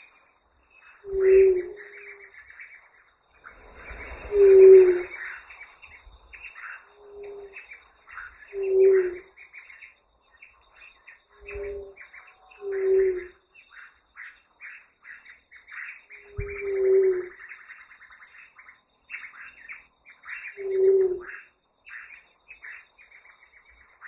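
Ruddy quail-dove giving its song: short, low single-note hoots repeated about eight times at irregular intervals of a few seconds. Other birds chirp busily and more faintly behind it.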